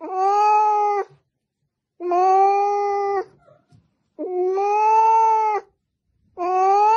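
A cat giving long, drawn-out meows, four in a row about two seconds apart, each held for over a second at a fairly steady pitch.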